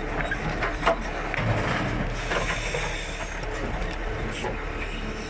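JCB 3CX backhoe loader digging, heard from the operator's seat: the diesel engine runs steadily under clanks and knocks from the backhoe arm and bucket, with a sharp knock about a second in.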